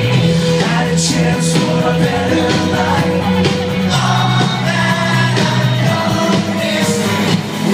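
Live rock band playing, electric and acoustic guitars with bass and a lead voice singing, heard loud from the audience.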